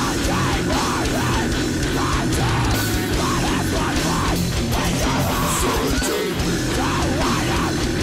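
Mathcore band playing loud, dense heavy music: distorted electric guitars with bass and drums.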